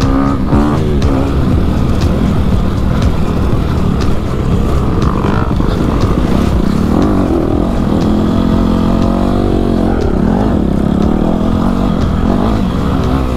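Honda CRF250RX dirt bike's single-cylinder four-stroke engine running under way, its note rising and falling with the throttle.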